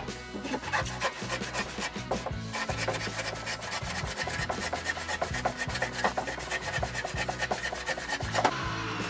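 Handsaw cutting through a wooden slab with quick, even back-and-forth strokes, stopping about eight and a half seconds in.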